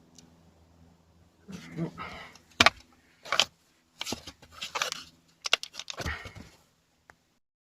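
Handling noise from work on a car door panel: a string of sharp clicks, knocks and rattles, the sharpest about two and a half seconds in and again around five and a half seconds.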